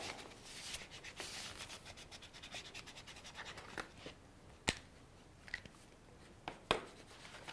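Brush-tip marker rubbing over folded paper in quick, faint scratchy coloring strokes, dying down after about four seconds, with two light sharp ticks later on.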